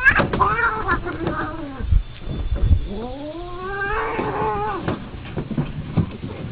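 Cat yowling and screeching in a fight: a sudden shrill outburst, wavering cries, then a long yowl that rises and falls about three seconds in, with a couple of dull thumps around two seconds in.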